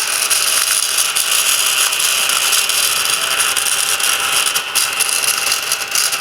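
Small desktop vacuum cleaner running steadily as it sucks breadcrumbs off a computer, a hissing whir with fine rapid ticking from the crumbs being drawn in.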